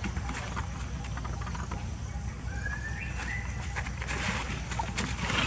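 Macaques scuffling in dry leaves and grass, with small crackles over a low steady rumble, and a short rising high squeak about two and a half seconds in, as from a baby macaque.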